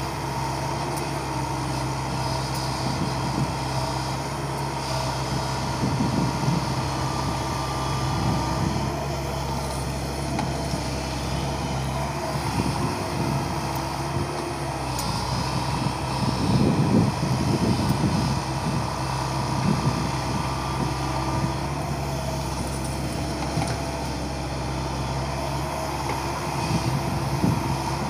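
Diesel engine of a JCB tracked excavator running steadily, with a low hum and a higher whine, swelling louder a few times as the machine swings and digs.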